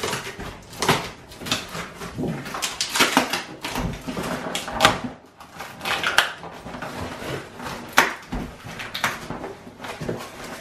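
Packing tape being ripped off a cardboard box and the box flaps pulled open: irregular tearing and scraping of tape and cardboard, with several sharper rips.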